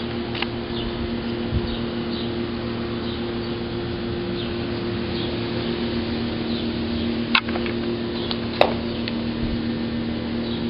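Outdoor ambience: a steady machine hum under faint, short bird chirps, with two sharp clicks a little past the middle.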